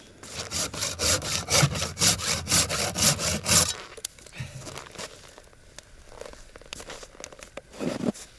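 Hand saw cutting through a piece of wood in quick back-and-forth strokes, about four a second for some three seconds, then stopping. Lighter scrapes and a few knocks follow.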